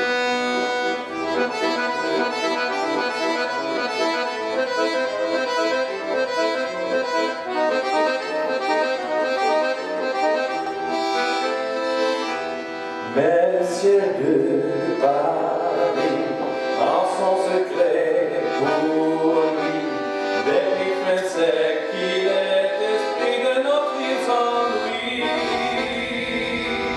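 Piano accordion playing a melody alone; about halfway through a man's singing voice comes in over it. Near the end a low rumbling noise rises under the music.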